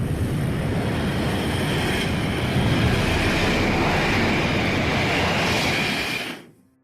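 Jet engine roar: a steady, dense rush with a faint high whine over it, fading out quickly about six seconds in.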